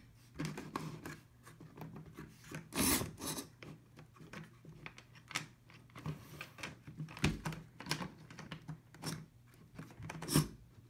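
Scattered light clicks, taps and rubbing as an HO scale model locomotive is handled on its track, over a faint steady hum.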